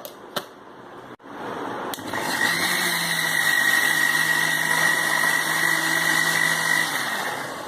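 Electric blender grinding onion, ginger, garlic and almonds with a little water into a marinade paste. A few clicks, then the motor starts about a second in, runs with a steady whine, and winds down near the end.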